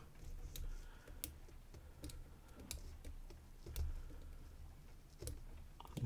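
Light, irregular metallic clicks of a gem-tip lock pick probing, lifting and rotating the chisel-tipped pins inside a four-pin Medeco core of a hardened-steel Cobra puck lock, held under light tension by a turning tool.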